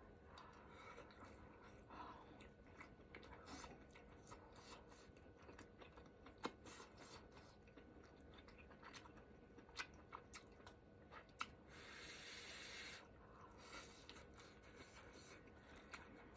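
Quiet close-up chewing with scattered soft mouth clicks and a few sharper ones, and a breathy hiss lasting about a second near twelve seconds in.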